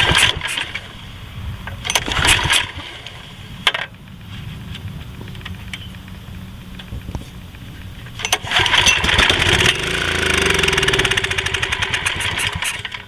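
Generac GN-220 7.8 hp overhead-valve engine being pull-started on carburetor cleaner with the choke on and an empty fuel tank: a couple of pulls on the recoil starter, then about eight seconds in it fires and runs for roughly four seconds before dying out. It shows the engine will still run; the fault is in the fuel supply, with a stuck carburetor float suspected.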